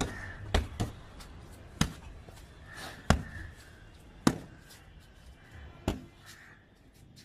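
Punches and kicks landing on a homemade punching bag, a stuffed cloth sack hung against a wall: about six sharp thuds at uneven spacing.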